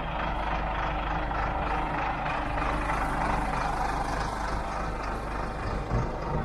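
Off-road vehicle's engine running steadily as it drives into the mud hole.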